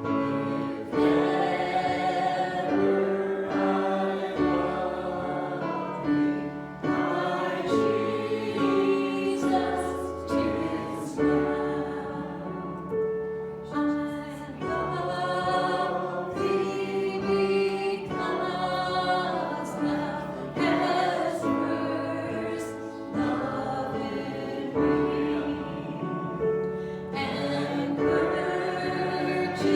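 A group of voices singing a slow hymn in harmony, with long held notes.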